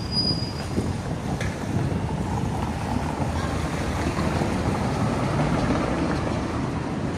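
City street sound: a steady low rumble of traffic and wind on the microphone, with a brief high squeal near the start.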